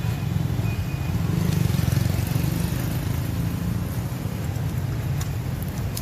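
Street traffic: a steady low rumble of passing motorbikes and cars, swelling a little about two seconds in.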